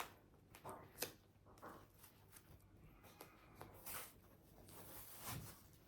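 Faint rustling and light clicks of packaging being handled and opened, a handful of short, soft scrapes spread through a near-silent room.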